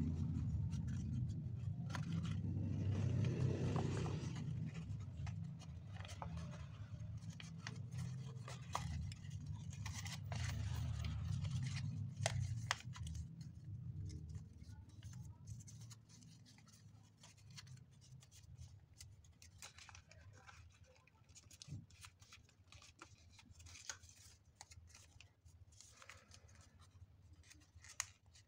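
Sheet of origami paper rustling and crinkling as it is folded and creased by hand, with many short crisp clicks and crackles. A low rumble under it in the first half fades out about halfway.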